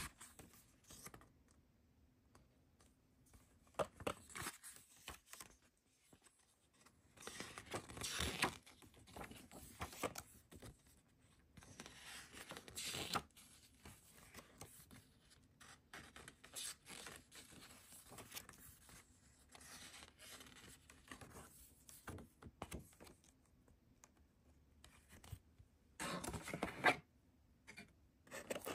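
Quiet, irregular rustling and scraping of paper and plastic packaging as an album and its inclusions are handled and unpacked, with a few louder rustles about eight and thirteen seconds in and near the end.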